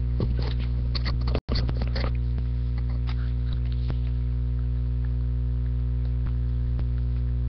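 Steady electrical mains hum, with the light scraping and rustling of tightly packed Magic: The Gathering cards being tugged against a cardboard box in the first two seconds, then only a few faint ticks. The sound cuts out for an instant about a second and a half in.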